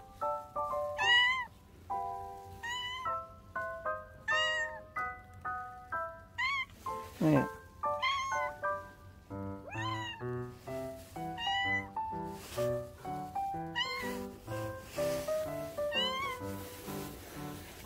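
A tabby cat meowing again and again, roughly one meow every one and a half to two seconds, each rising and then falling in pitch. Background music plays under it, with a low bass part coming in about halfway.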